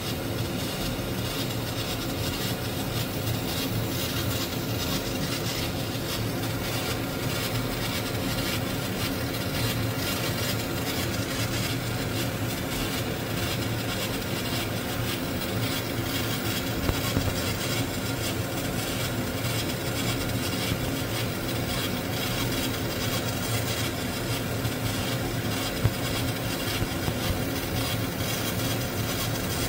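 80-watt MOPA fiber laser engraving brass: a steady hiss from the pulsed beam working the metal over a steady low hum, with a few brief ticks partway through.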